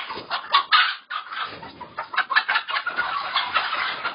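A large flock of layer hens clucking and squawking all at once, with a short lull about a second in. The flock is stirred up by birds being caught by hand.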